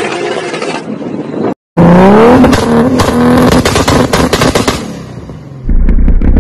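Toyota Supra Mk4's turbocharged 2JZ inline-six exhaust. The engine runs for about a second and a half and cuts off briefly. It then comes back loud, rising in revs and holding, with many sharp exhaust pops. It fades, and a deeper, heavier engine note comes in near the end.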